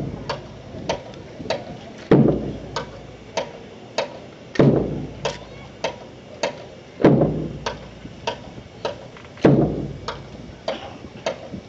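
A squad doing rifle drill in unison: about every two and a half seconds a sharp crash of hands slapping rifles and boots or rifle butts striking the ground, with lighter clicks of rifle handling in between.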